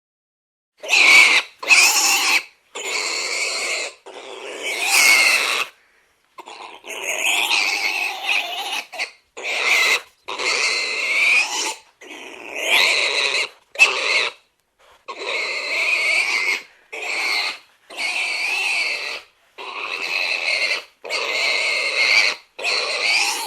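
Domestic pig squealing: a long series of shrill squeals, each lasting half a second to about two seconds, with short breaks between them.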